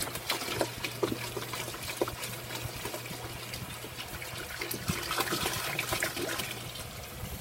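Spoiled, clumpy milk being poured out of a bottle into a kitchen sink under a running tap: a steady wash of water with irregular splats and glugs.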